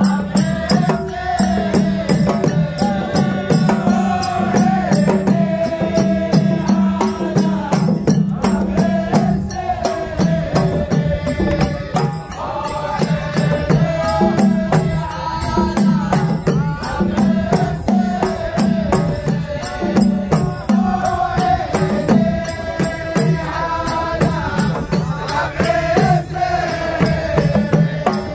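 Traditional Emirati al-ayyala performance: a group of men chanting in unison in repeated sung phrases over a steady beat of drums and frame drums.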